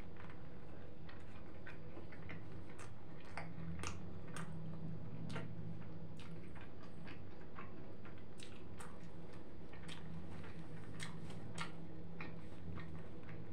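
A man chewing a mouthful of shawarma close to the microphone: irregular wet mouth clicks and smacks, over a low hum.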